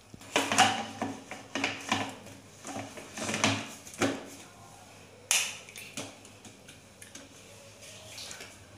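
Irregular clicks and knocks of a mixer grinder's stainless steel jar and plastic lid being handled: the lid pressed on and the jar set onto the motor base. The motor is not running. There is a sharp click about five seconds in.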